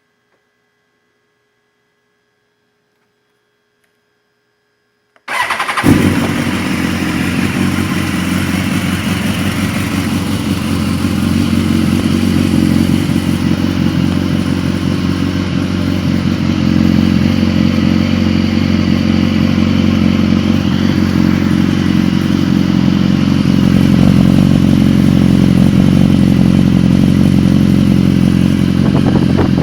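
BMW S1000RR HP4's inline-four engine, breathing through its stock exhaust with the insert removed, starts abruptly about five seconds in after near silence and settles into a steady idle, getting slightly louder in the second half.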